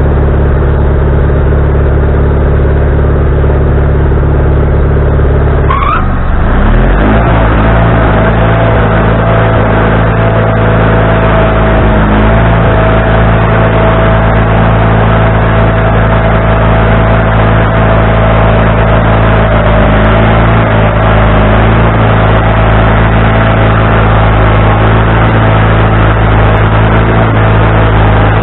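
Wood-Mizer LT40HD sawmill's gasoline engine running loud. About six seconds in, its pitch rises as it speeds up, then it holds steady with a high whining tone.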